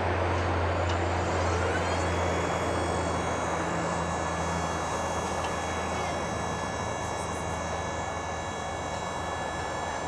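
Bil-Jax articulating boom lift's hydraulic drive running as the boom raises the basket: a steady low hum, joined about two seconds in by a high whine that slides up briefly and then holds steady.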